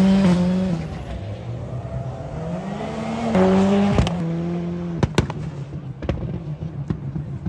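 Rallycross car's engine at full throttle at a steady high pitch, dropping off about a second in, then climbing again as it accelerates. From about four seconds in come several sharp exhaust bangs and pops.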